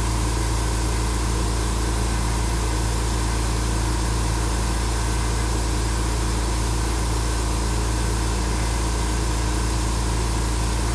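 Steady low hum over an even hiss from running shop machinery, holding level without change.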